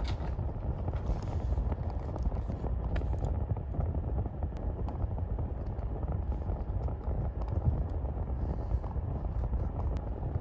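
Steady low rumbling room noise with a few faint clicks.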